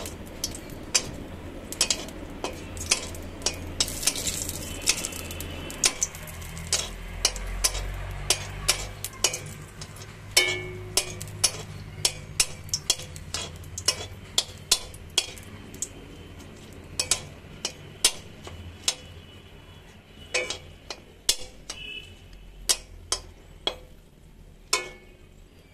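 Two dried red chillies frying in a little hot oil in an iron wok: a steady sizzle, with many sharp, irregular clicks and taps as a metal spatula turns them against the pan. This is the chilli tempering, fried until dark to release its aroma. The sizzle fades somewhat toward the end.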